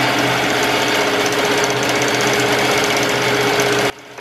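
Melco EMT16X commercial embroidery machine stitching a monogram at 950 stitches per minute, a fast, steady run of needle strokes. It cuts off suddenly near the end.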